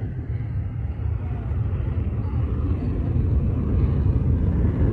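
Distant F-16 fighter jet engine on its takeoff, a low rumble that slowly grows louder.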